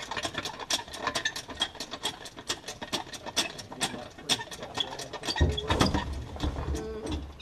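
Hand ratchet wrench clicking rapidly, about six clicks a second, backing out a rusted fuel tank strap bolt on a 1976 Trans Am. A louder low rumble of the tank and hardware being handled joins it about five seconds in.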